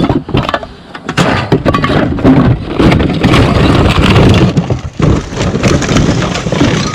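Cans and bottles clattering and clinking against each other as recyclables are rummaged through and handled, a dense run of irregular knocks.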